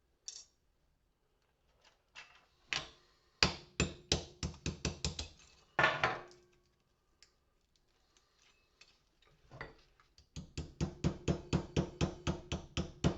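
Rapid hammer blows, about five a second, knocking porcelain away from a brass lamp-holder shell. There are two runs of strikes with a brief clatter between them.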